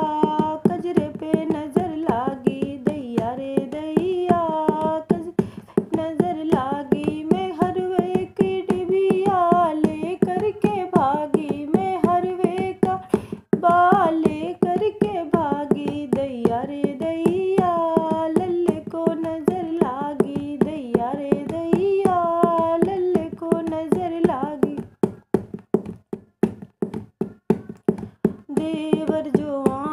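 A woman singing a sohar, a folk song for a newborn, over a quick, steady dholak beat. Near the end the voice stops for a few seconds, leaving the drum alone, then the singing comes back in.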